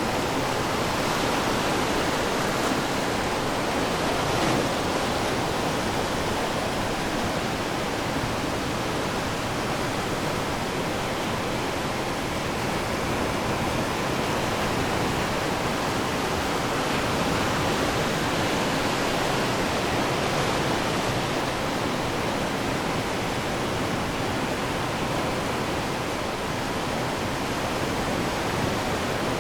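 Ocean surf washing on the shore as a steady wash of noise that swells slightly now and then, with no single breaker standing out.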